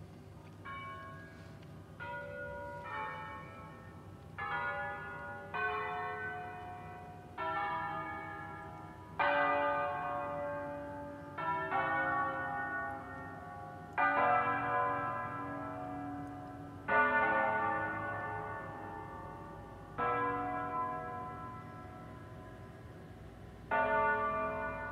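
Church bells of the basilica of Sant'Alessandro in Colonna playing a bell concert: differently pitched bells struck one at a time, about a dozen strikes one to three seconds apart, each ringing on and overlapping the next. The strikes grow louder toward the middle and ease off near the end.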